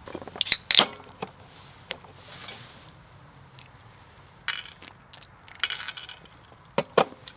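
Pistachios being handled in a metal camping bowl, nuts and shells clicking and clinking against the metal in a string of sharp separate ticks, a quick cluster about half a second in and two more near the end.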